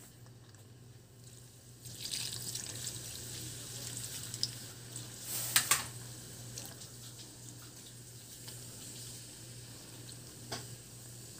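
Water poured from a plastic bottle onto mud crabs in a frying pan, splashing and trickling from about two seconds in, with a few sharp clicks a little past the middle. A low steady hum runs underneath.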